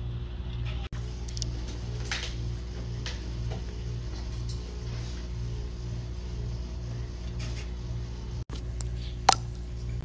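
A steady low hum that pulses about twice a second, with faint small clicks and taps of makeup being handled, and one sharper click near the end.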